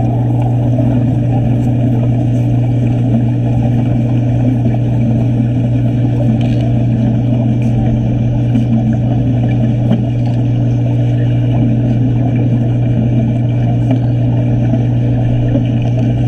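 Steady, muffled low rumble with a strong low hum, heard underwater while a wet stick-welding arc is burning.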